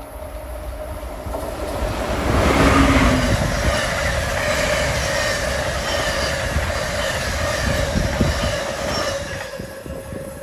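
Amtrak Siemens ACS-64 electric locomotive and its passenger cars passing at speed. A rush and rumble swells to its loudest as the locomotive goes by, about two to three seconds in. The cars' wheels then rumble steadily over the rails and fade near the end.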